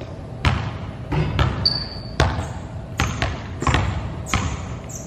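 Basketballs bouncing on a hardwood gym floor: about eight sharp, irregular bangs that echo in the large hall. A short sneaker squeak comes about a second and a half in.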